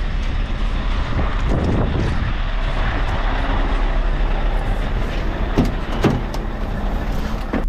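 Heavy truck noise: a steady engine and road rumble, with two sharp knocks about five and a half and six seconds in.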